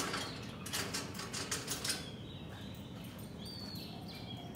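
A rapid run of clicks and rattles for about the first two seconds, then faint, high chirping bird calls that step up and down in pitch.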